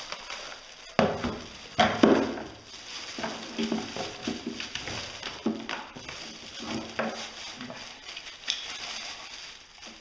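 Clear plastic bag crinkling and rustling as a new handheld vacuum cleaner is unwrapped by hand, with two louder bumps about one and two seconds in.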